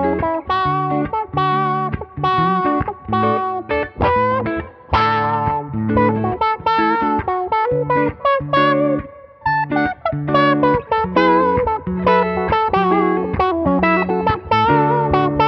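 Two electric guitars playing together through the Ibanez AFL Auto Filter, a 1980s envelope filter (auto-wah). The notes are plucked steadily, with a short break in the playing a little past nine seconds in.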